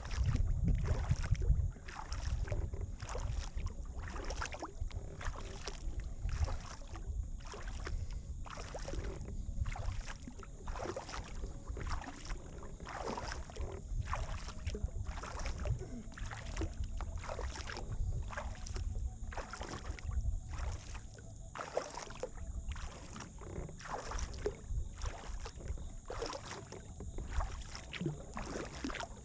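Double-bladed kayak paddle dipping into the water in alternating strokes, splashing and dripping about once a second.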